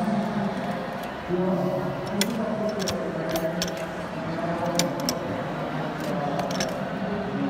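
A hand-lever button-badge press and its metal badge shells being handled: a series of short, sharp metallic clicks and clinks as the parts are set into the die and the press is worked, over steady crowd chatter.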